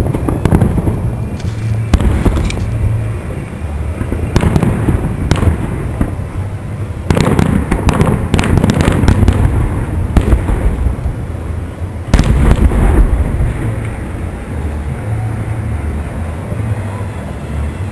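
Aerial firework shells bursting: a series of loud bangs with rolling rumble between them. There is a dense run of rapid reports about seven to nine seconds in, and another big bang a little after twelve seconds.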